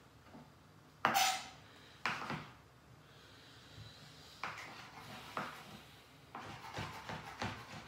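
Kitchen knife slicing tomatoes and knocking down on a cutting board: separate irregular chops, the loudest, with a short ring, about a second in, then quicker chops near the end.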